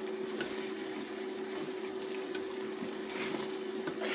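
Onion-tomato masala sizzling and bubbling in an aluminium pot, with light scrapes and clicks of a steel ladle stirring it, over a steady low hum. The masala has fried to the stage where the oil separates.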